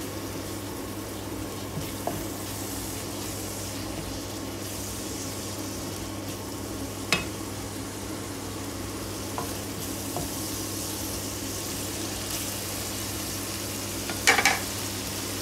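Tomatoes, onions and shrimp paste sizzling in a nonstick frying pan while a wooden spatula stirs through them, with a few sharp knocks of the spatula on the pan, a cluster of them, the loudest, near the end.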